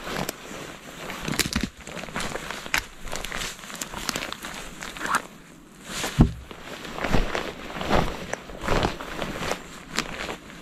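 Hiking boots scrambling over moss, twigs and splintered rotten wood: irregular footsteps with twigs cracking and a rain jacket rustling, and a heavy thump about six seconds in.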